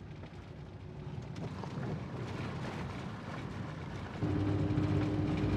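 Van engine running under load while climbing a steep hill. It grows gradually louder, then steps up about four seconds in, when a steady whine joins it.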